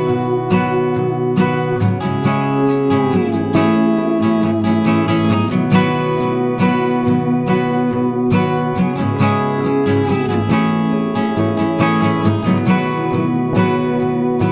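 Background music: strummed acoustic guitar with a steady rhythm and occasional sliding notes.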